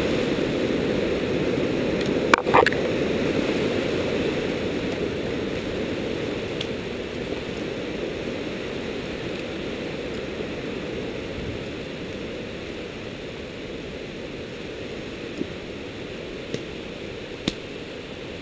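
A high-running creek rushing steadily, growing gradually fainter. A couple of sharp clicks about two and a half seconds in and a few faint ticks near the end.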